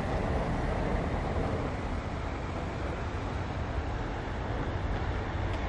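Steady rushing noise with a heavy low rumble and no distinct events or pitched sounds.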